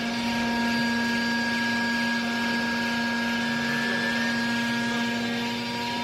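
Hydraulic power unit of a vertical clothes baler running as the ram moves: a steady hum with a whine over it.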